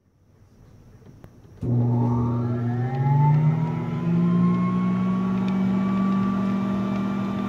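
Player piano's suction pump motor starting up: a hum and a whine that come in suddenly, rise in pitch over a couple of seconds as the motor gets up to speed, then run steadily.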